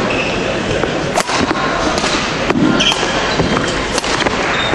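Badminton rackets striking a shuttlecock during a rally, a string of sharp cracks a fraction of a second to a second apart, with brief shoe squeaks on the court floor over the steady noise of the hall and its spectators.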